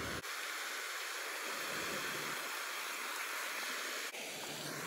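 Steady rushing hiss of pond fountain aerator spray falling onto the water.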